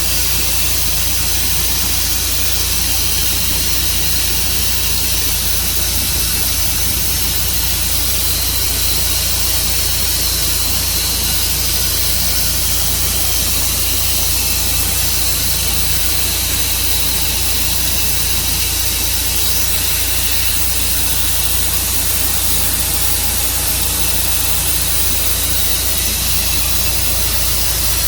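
Tru-Cut bandsaw sawmill running and sawing through an elm log: a steady engine drone under a loud, even hiss that does not change.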